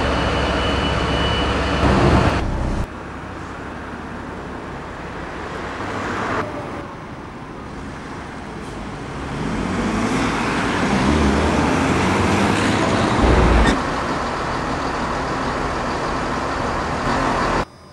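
A run of short clips of diesel vehicles at a town centre and a station. A bus engine runs steadily, a double-decker bus's engine rises in pitch as it pulls away, and near the end a Chiltern Railways Class 168 diesel multiple unit runs steadily at a platform before the sound cuts off abruptly.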